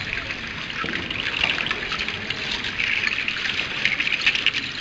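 Many Aztec dancers' seed-shell rattles (ayoyotes) shaking together as a line of dancers steps along. The result is a dense, even rattle like pouring rain.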